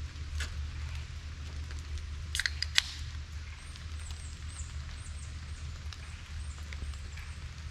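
Damp woodland ambience: scattered drips and taps from water falling out of wet trees over a steady low rumble, with a short cluster of sharper clicks and taps about two and a half seconds in. From about halfway, faint high chirps repeat about twice a second.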